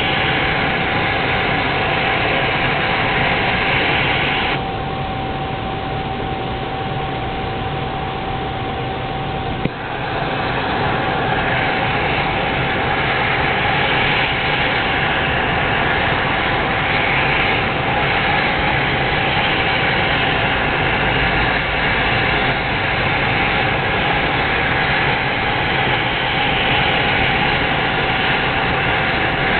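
Propane turkey-fryer burner running under the pot, a steady rushing flame noise with a thin steady whistle. About five seconds in it turns quieter and duller for about five seconds, then comes back up full with a brief sharp knock.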